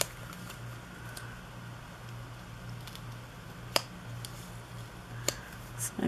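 Quiet handling of paper stickers and a planner page, with two light, sharp clicks, one a little past halfway and one near the end, over a steady low electrical hum.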